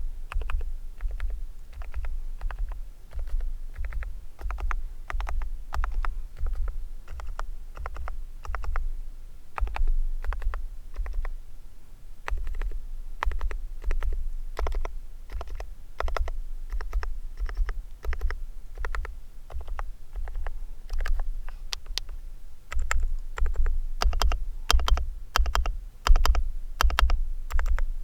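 Gclicker Swingkey WK101 keyboard with hand-lubricated low-noise switches being typed on continuously: a steady run of soft keystroke clicks, each with a dull low thud under it. The typing gets denser and sharper over the last several seconds.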